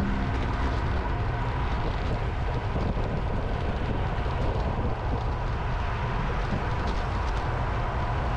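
Steady rumble of wind and road noise from a moving ride, with a faint steady high tone under it.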